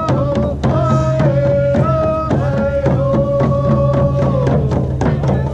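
Hand drums beaten in a steady beat of about four strikes a second, with voices singing a song in long held notes over it; one long note about three seconds in slides down near the end.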